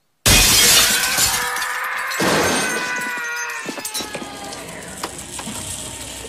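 A loud crash of breaking glass that starts suddenly, its shards ringing and slowly fading. A second crash comes about two seconds in, followed by scattered clinks.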